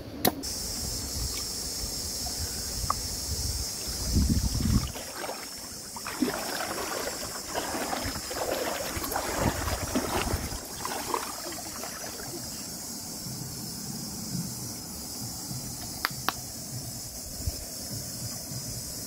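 Steady high outdoor hiss, with a brief low rumble about four seconds in, then irregular rustling and handling noises of someone moving about over dry ground, and a few sharp clicks near the end.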